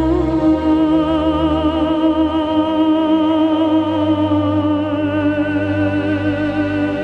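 Slow music: a single long note held with vibrato over low sustained bass tones, the bass changing about two and a half seconds in.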